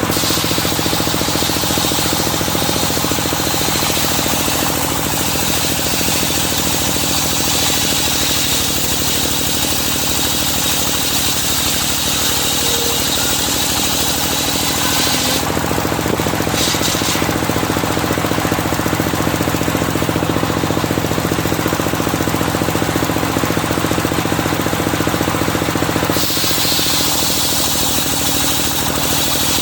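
Engine-driven circular sawmill running as it saws medang timber, with a steady rapid engine rhythm under a high saw whine. The whine fades for about ten seconds from halfway through, then comes back.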